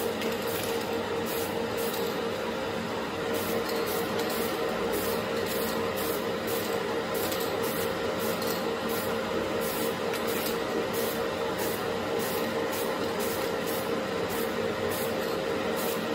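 Spray paint hissing onto a cast iron stove part in short repeated bursts, over the steady hum of a spray-booth extraction fan.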